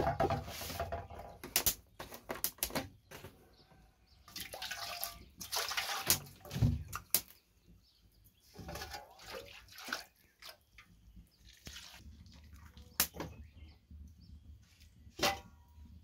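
Water splashing and dripping as boiled noodles drain in a metal colander, with irregular clinks and knocks of metal pots being handled.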